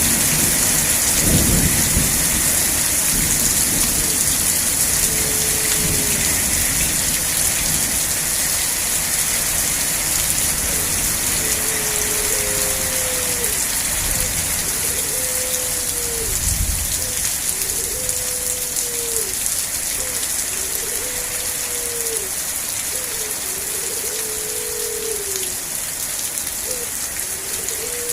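Steady rain, with low thunder rumbling in the first seconds and briefly again about halfway through. From about twelve seconds in, a short falling call repeats roughly every one and a half seconds over the rain.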